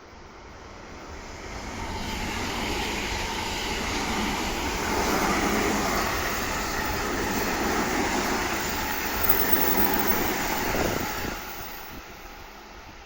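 A JR West train passing on the line: wheels on rail building up over the first few seconds, holding loud for several seconds, then fading away near the end.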